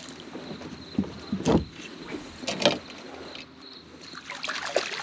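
A few sharp knocks and handling noises on a fishing kayak, the loudest about a second and a half in, with faint high insect chirping behind.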